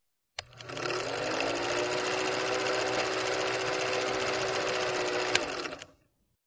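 Film projector running: a steady mechanical whir and clatter. It starts with a click, has a sharp click about five seconds in, and stops shortly before the end.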